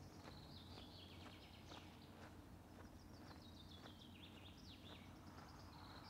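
Faint birdsong: a small songbird singing repeated phrases of quick notes that step down in pitch, over a low steady background hum with a few scattered faint clicks.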